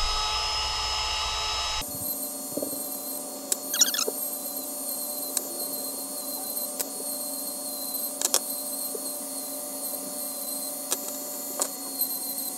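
Dremel rotary tool running at high speed with a steady whine, grinding the leftover spot-welded tabs off the ends of 18650 lithium-ion cells. Scattered sharp clicks come through as the bit works the metal. The sound changes about two seconds in.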